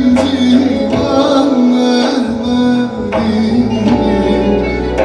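Turkish folk music from a choir's ensemble: pitched instruments and voices over a drum beat of roughly one stroke a second.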